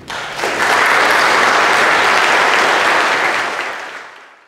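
Audience applauding, swelling within the first second, holding steady, then fading out near the end.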